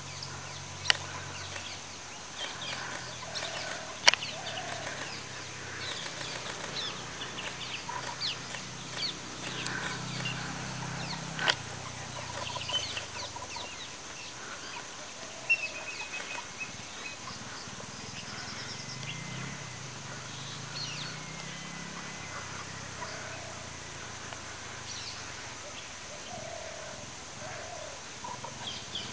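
Tropical forest ambience: a steady high insect drone with many short bird calls. A low rumble swells and fades twice, and there are four sharp snaps.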